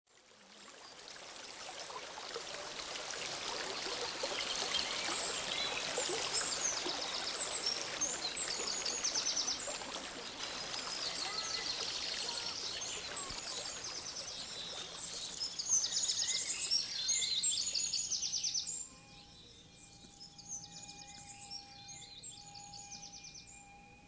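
Birds chirping and trilling over a steady rushing noise like running water, fading in at the start. About three-quarters of the way through the rushing drops away, leaving a faint steady hum of two tones.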